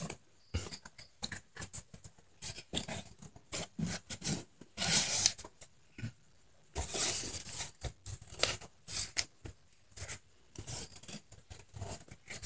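Thin plastic wrapping and a cardboard box being handled and unpacked: irregular crinkling and crackling, with two longer rustles about five and seven seconds in.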